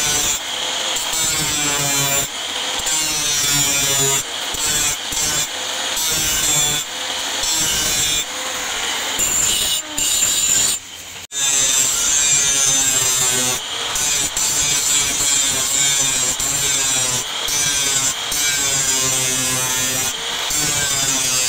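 Angle grinder with an abrasive disc grinding the edge of a leaf-spring steel cleaver blank: a steady loud whine and hiss of disc on steel, wavering in pitch as the load on the disc changes. It drops out briefly about eleven seconds in.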